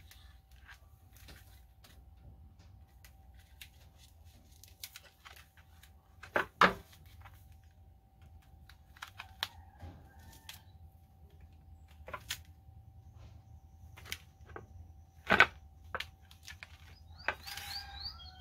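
Scattered light clicks and rubs of a foam pool-noodle float on a PVC tube, wound with fishing line, being turned over in the hands, with a couple of louder knocks, about six and fifteen seconds in.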